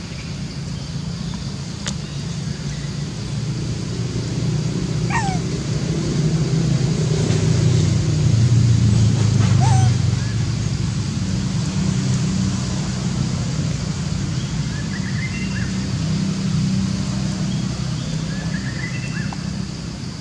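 A steady low rumble that grows louder towards the middle and then eases off. Over it come two short, high squeals that fall sharply in pitch, about five and ten seconds in, and a few faint chirps later on.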